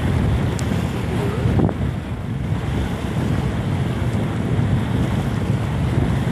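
Wind buffeting the microphone in a steady low rumble, over the wash of waves around a sailboat.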